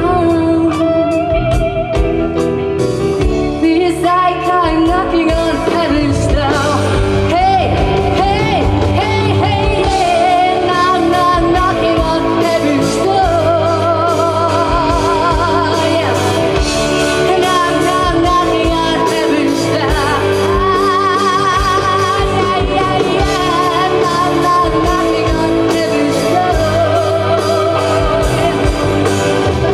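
Live rock band playing, with a woman singing lead over it and holding long notes with vibrato.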